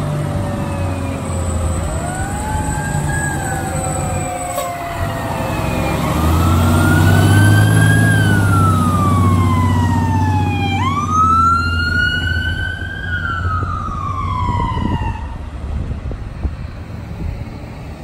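Fire truck's mechanical siren winding up and coasting down in slow rising and falling wails, with a sharp wind-up about eleven seconds in that dies away over several seconds. Under it, the ladder truck's engine rumbles, loudest as the truck passes about halfway through.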